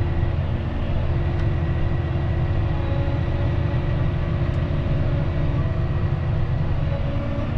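John Deere 6215R tractor's six-cylinder diesel running steadily under working load, a constant low drone with a few steady tones above it.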